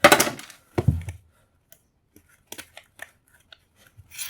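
Brass faucet parts being handled: a short, harsh noise at the start, a heavier knock about a second in, then scattered light clicks and taps, and another short noise near the end.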